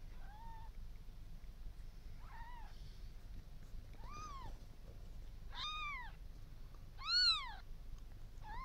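Newborn kitten mewing: six high, arching cries about a second and a half apart, growing louder, the fifth the loudest.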